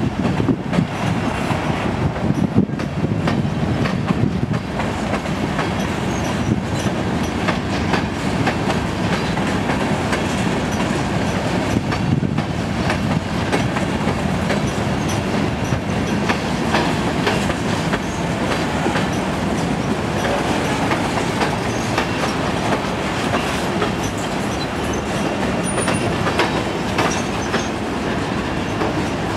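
Freight train cars (covered hoppers, tank cars, boxcars) rolling past at low speed, their steel wheels on the rails making a steady rumble and clatter.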